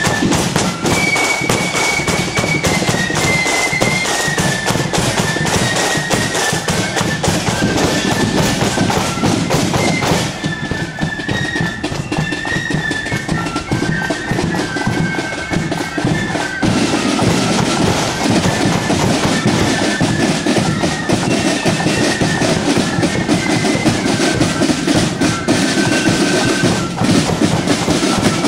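Marching flute band playing a tune in unison on flutes, with drums beating time underneath.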